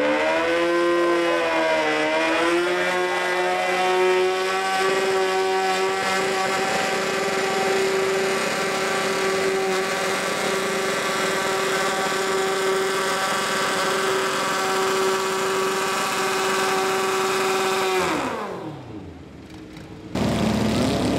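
Modified riding lawn mower engine at full throttle pulling a weight-transfer sled under load, held at high, steady revs, then winding down sharply about three seconds before the end.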